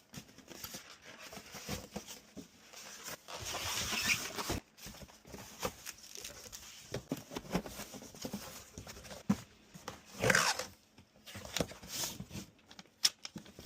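Irregular rustling and handling noise with scattered light clicks and knocks, swelling louder twice: items and packaging being moved about by hand.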